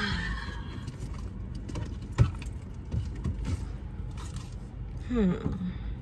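Car engine idling, heard as a steady low rumble inside the cabin. A single sharp click comes about two seconds in, and near the end a short falling "mm" hum of a voice.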